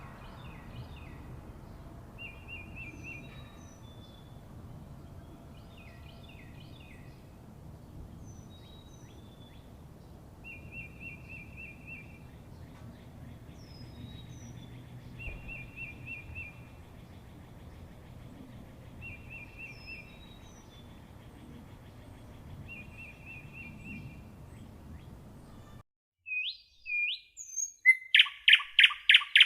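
Birdsong in a forest over a soft low background. A bird repeats a short trill every few seconds among scattered high chirps. Near the end the background cuts out, and a different, much louder bird starts a fast run of repeated notes.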